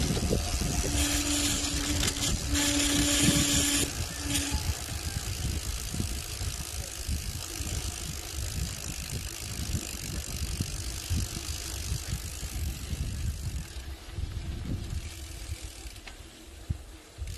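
Mountain bike riding over a dirt track: wind buffeting the microphone and tyre rumble throughout. The rear freewheel hub's ratchet buzzes in three short spells in the first few seconds as the rider coasts, stopping when pedalling resumes.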